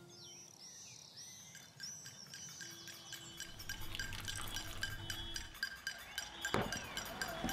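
A few high bird chirps, then water poured from a small ceramic jug trickling into the soil of a plant pot. Near the end the jug is set down with a single clink.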